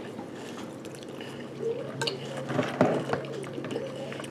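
Spoons stirring and scooping cereal and milk in bowls, with a few light clicks of spoon against bowl around the middle.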